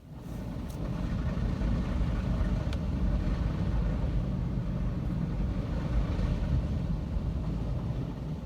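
Car wash equipment running: a steady low rumble with a hiss of spray above it, swelling up quickly at the start and easing a little near the end.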